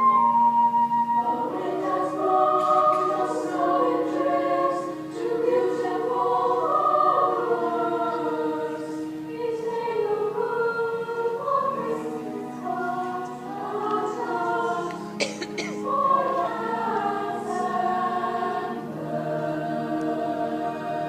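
A chorus of young voices singing together in a musical-theatre number.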